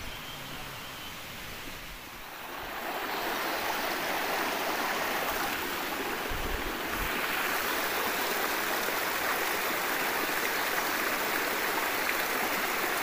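Running water of a small mountain stream, a steady rushing that grows louder about two to three seconds in and then holds.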